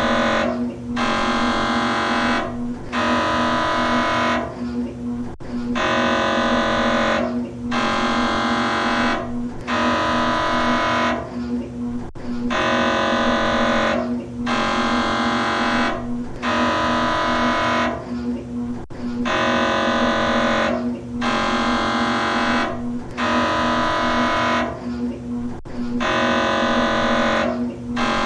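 MRI scanner running a scan sequence: loud pitched buzzing from the gradient coils, repeating in buzzes about a second long with short breaks between them, over a steady hum.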